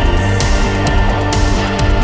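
Dark post-punk band recording: drums hitting a steady beat over a low bass line and sustained instrument tones.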